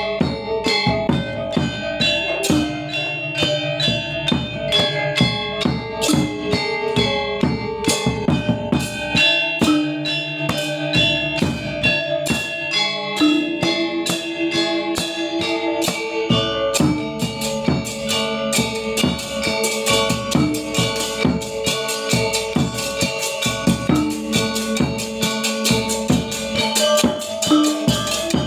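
Balinese gamelan gong ensemble playing: bronze keyed metallophones and gongs struck in a fast, dense pattern over drums, the low part filling out about halfway through.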